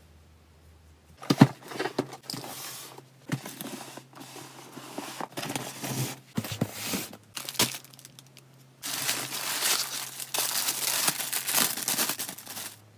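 Packaging being handled and torn open: a series of short crinkles, rustles and clicks, then a longer stretch of continuous crinkling and tearing near the end.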